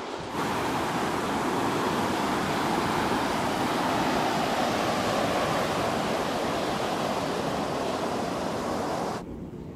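Ocean surf breaking on a sandy beach: a steady rushing wash of waves that cuts off abruptly near the end.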